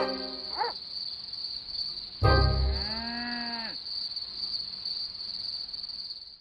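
Steady high-pitched chirring of crickets. About two seconds in there is a sudden loud low hit, followed by a pitched tone whose notes bend and then fall away about a second and a half later.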